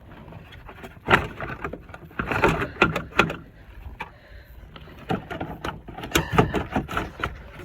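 Irregular knocks, clicks and rattles of car parts being handled and worked loose by hand, in several quick clusters.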